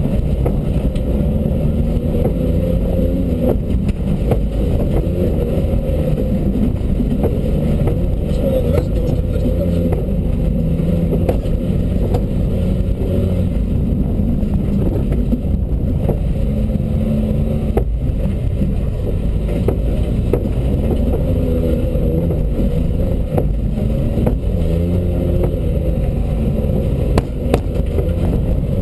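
Rally-prepared Dacia Duster's engine heard from inside the cabin while driving off-road, the revs rising and falling as it is worked through the gears, with scattered knocks and rattles from the car over the ground.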